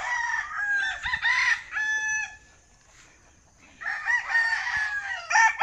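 Gamecock roosters crowing: a run of crows, a quiet gap of about a second and a half near the middle, then more crowing near the end.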